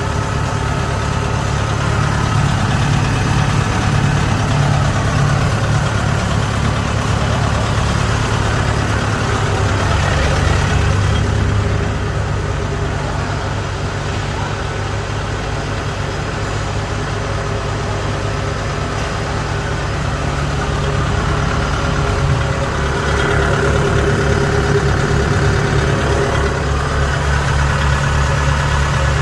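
Kubota DC70G combine harvester's diesel engine running steadily at idle.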